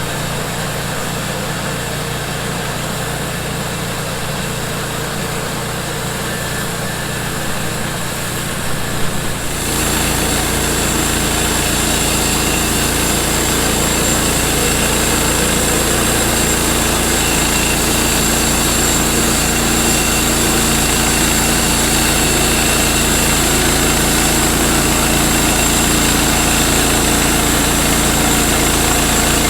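Small gasoline engine of a sawmill running steadily, then turning louder and fuller about ten seconds in and holding there.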